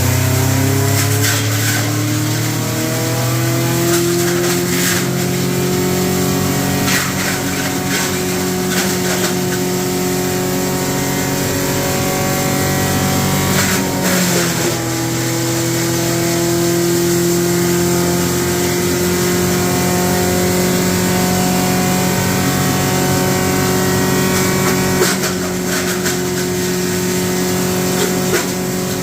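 Wood crusher running under load, shredding scrap wood: a steady machine drone that climbs in pitch over the first few seconds, with scattered sharp cracks as pieces are broken up. About halfway through, a loud crack comes with a brief sag in pitch as the load bogs the machine down, and the speed then recovers.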